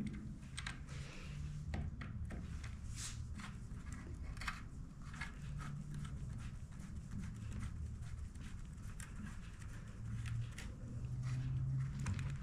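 Scattered faint clicks and scrapes of small metal parts and a hand tool being worked into a chainsaw's clutch-side housing, over a low steady hum.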